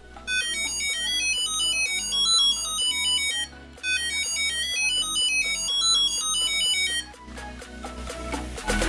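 Hello Kitty Magic Kirakira Compact toy playing its tinny electronic melody of short beeping notes through its repaired speaker, with a short break about three and a half seconds in. The speaker is working again.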